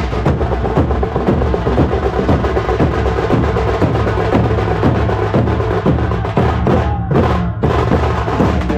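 A tasha-ramdol drum band, with large barrel drums beaten with sticks, playing a loud, fast, dense beat. The sharp high strokes drop out briefly about seven seconds in.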